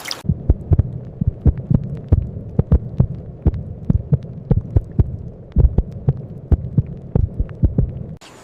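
A low steady hum with irregular, muffled thumps and taps, several a second.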